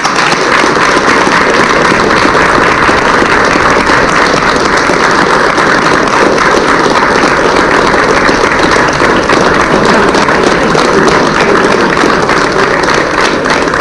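Group applause, many people clapping together in a loud, dense, steady patter that starts suddenly.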